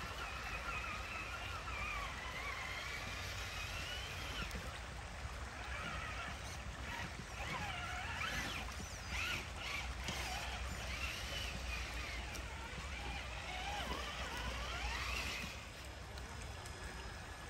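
Traxxas TRX-4 RC crawler's electric motor and gears whining, the pitch rising and falling as the throttle changes while it wades through a creek, over the steady wash of running water.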